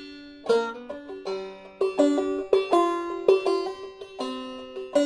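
Five-string banjo played clawhammer style in sawmill tuning (G D G C D): a steady run of plucked notes and strums, several a second, with hammer-ons and a slide up the neck.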